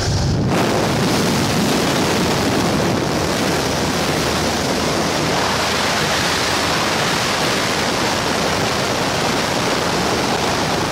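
Wind rushing past the open door of a skydiving jump plane and buffeting the camera's microphone: a loud, steady rush of noise that comes in sharply at the start.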